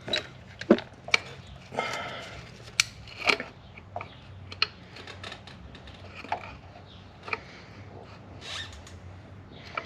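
Scattered sharp clicks and brief soft scrapes from hand work with a tube of seam sealer in a caulking gun, over a faint low steady hum.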